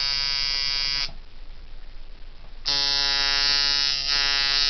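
Coil tattoo machine on a 2013 Junebug frame buzzing at 6.5 volts, hitting hard. It runs for about a second, stops, and starts again about two and a half seconds in with a steady pitch.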